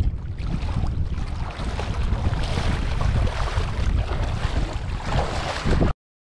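Wind buffeting the microphone with a heavy rumble over the wash of sea waves. It cuts off suddenly near the end.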